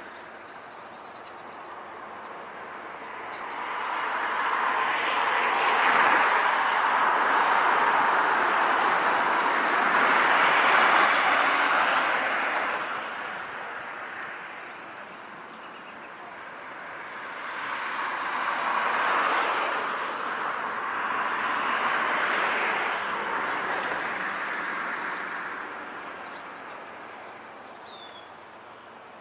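Two passing vehicles, one after the other, each a rush of noise that swells over several seconds and fades away. A bird gives a short chirp near the end.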